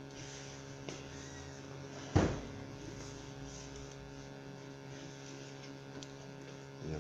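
Steady electrical hum with many even tones, with a faint click just under a second in and one sharp thump about two seconds in.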